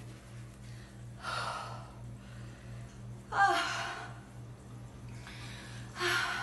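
A woman's breathy sighs of relief, three of them about two seconds apart, as she gets to scratch an intense itch.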